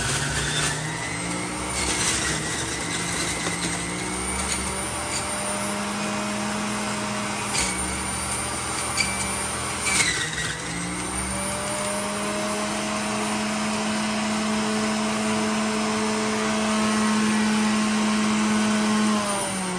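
Hamilton Beach centrifugal juicer's motor running with a steady whine. Its pitch sags a few times as fruit is pressed down the chute with the plunger, with a few sharp clacks. Near the end it is switched off and the whine starts to fall as it winds down.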